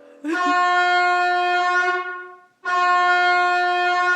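Two long, loud air horn blasts played from an iPad air horn app, each held for about two seconds at one steady pitch; the first starts just after a faint lower tone and fades out, the second begins about two and a half seconds in.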